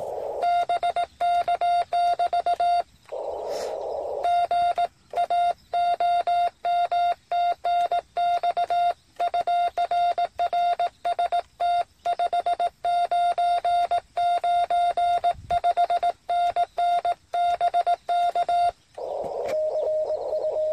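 Morse code keyed on a Yaesu FT-817 transceiver in CW mode: a steady single-pitched beep switched on and off in dots and dashes, most likely the rig's sidetone as the operator sends. It pauses briefly about three seconds in, and near the end gives way to the receiver's narrow-filtered hiss with a faint received signal.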